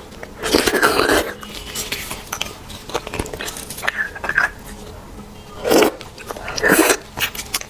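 Mouth sounds of eating beef bone marrow: wet sucking of the soft marrow from the bone and chewing. There is a longer burst about half a second in and two short ones near the end.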